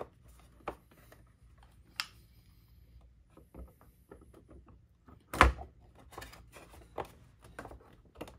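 Light clicks and taps from hands handling and positioning parts on a plastic proton pack shell, with one louder knock about five and a half seconds in. No drill is running.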